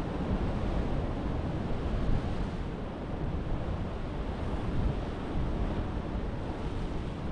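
Sea surf washing against the rocks and wind blowing across the microphone: a steady rushing noise, heaviest in the low end.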